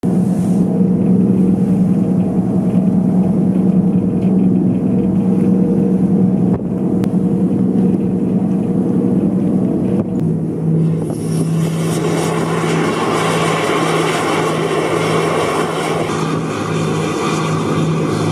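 A boat's engine drones steadily at sea. From about eleven seconds in, a loud, even rushing hiss joins it.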